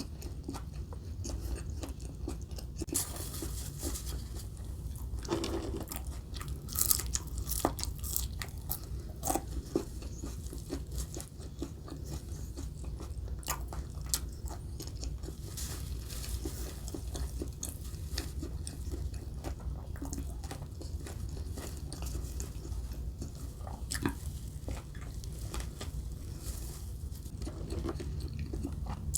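Close-miked eating of Burger King food: steady chewing with many sharp, crunchy bites.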